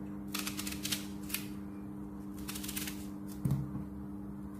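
A small knife cutting chunks off a whole peeled onion held in the hand, the chunks dropping into a glass baking dish: a few short, crisp clicks and taps, spaced irregularly. A steady low hum runs underneath.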